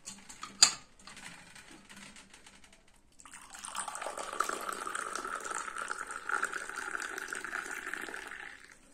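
Mint tea poured from a metal teapot into a glass: a steady pour lasting about five seconds, starting about three seconds in. Before it, a sharp click comes about half a second in.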